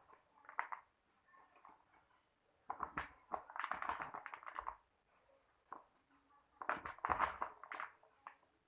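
Crackling paper rustle and crunching of dry kurkure snack pieces as a paper cone is handled and filled, in two main bursts with scattered small clicks between.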